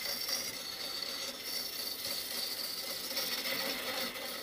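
A turning gouge cutting the outside of a spinning wooden vessel on a wood lathe: a steady hiss of shavings coming off the wood.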